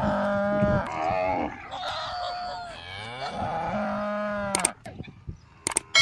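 Cattle mooing: two long, wavering calls, the second running from about halfway to near the end, followed by a few sharp clicks.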